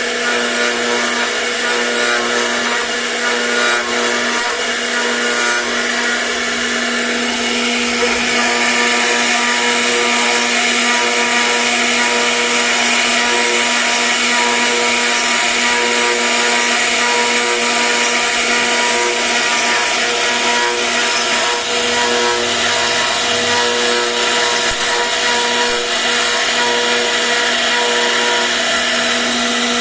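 CNC router spindle running while carving wood: a steady whine over continuous cutting noise, which grows a little louder about eight seconds in.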